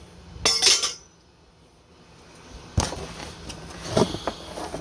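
Metal animatronic support poles clinking and knocking together as they are handled: a scraping clatter about half a second in, a sharp knock near the middle, and more clatter near the end.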